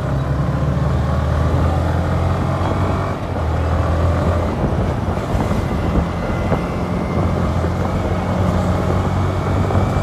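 Motorcycle engine running steadily on the move, heard from on the bike over road noise. The engine note drops briefly about three seconds in, then picks up again.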